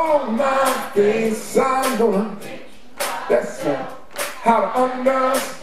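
A live blues band playing a slow song: a man singing over electric guitar and electric bass, with a drum hit about once a second.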